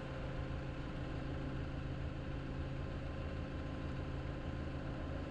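Forklift engine idling steadily, heard from inside the cab, with a low, even hum and no change in speed.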